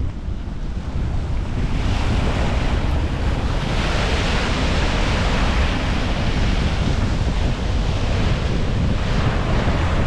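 Small waves breaking and washing up over a pebble beach in a steady hiss of surf that swells about two seconds in. Under it is a low rumble of wind buffeting the microphone.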